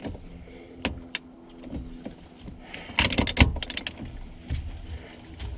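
Metal socket and ratchet clicking and clattering on the steering-wheel retaining nut: a single click about a second in, then a quick run of about eight clicks a little past halfway. The 21 mm socket sits loosely on the nut.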